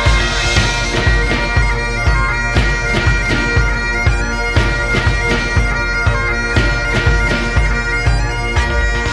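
Bagpipe music: a tune over steady held drones, with a drum beat at about two beats a second.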